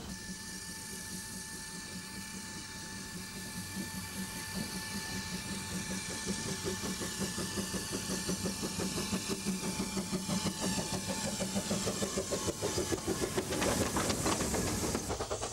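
A Vale of Rheidol narrow-gauge steam tank locomotive working its train: a steady steam hiss with held high tones, then rhythmic exhaust chuffs that grow louder as it comes past.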